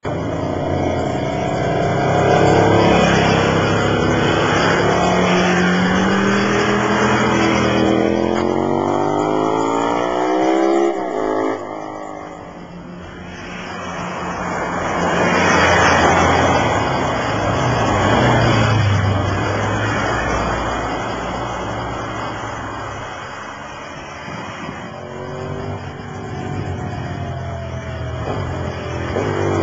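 Motorcycle engine pulling hard while riding, its pitch climbing steadily for several seconds and then dropping suddenly about eleven seconds in as the throttle closes or a gear changes. After that a loud rushing noise takes over, and the engine rises in pitch again near the end.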